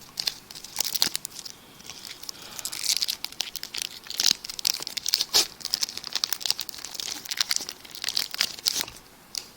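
A baseball card pack's wrapper crinkling and tearing as it is ripped open and handled, a run of irregular crackles that dies down about nine seconds in.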